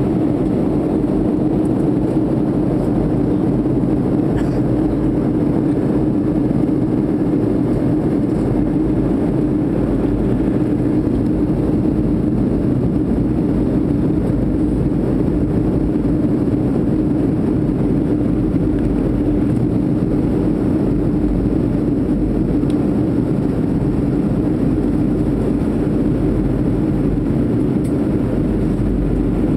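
Jet airliner cabin noise on approach to landing: a steady rush of airflow and engine drone, with one constant low hum under it.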